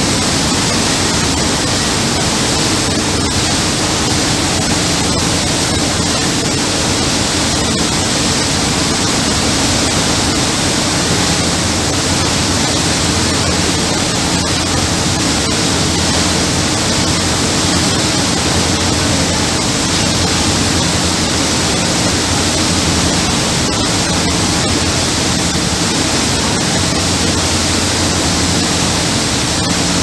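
Steady loud rush of a motor boat's churning wake water together with the steady low hum of its engines, unchanging throughout.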